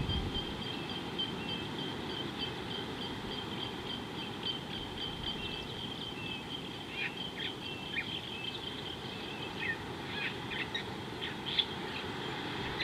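Birds calling: a rapid, steady run of repeated high-pitched notes, joined in the second half by scattered short chirps that drop in pitch, over a low background rumble.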